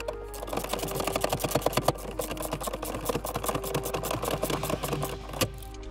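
Hand socket ratchet clicking rapidly as it winds 10 mm bolts back in around the gear shifter. The clicking pauses briefly near the end.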